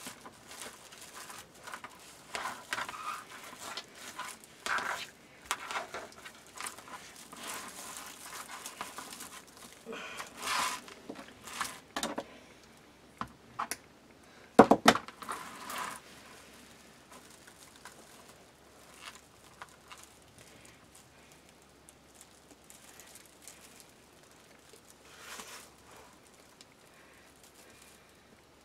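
Red deco mesh rustling and crinkling in irregular bursts as it is handled and fluffed, with one sharper knock a little before halfway; the rustling grows quieter and sparser toward the end.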